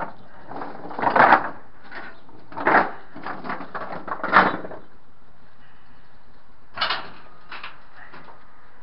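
A few short knocks and clunks, about five spread out, the first three the loudest, over steady faint background noise.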